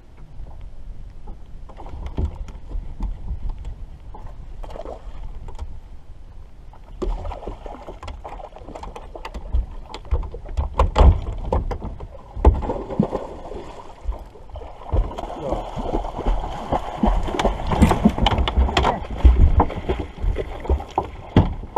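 Water splashing and sloshing around a bass boat, with knocks and thumps on the deck, getting louder and busier about a third of the way in: a bass being landed and a large black dog going overboard.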